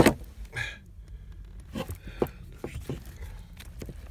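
Handling noises during work on a car's heater blower fan: a sharp click at the start, then scattered light clicks and knocks.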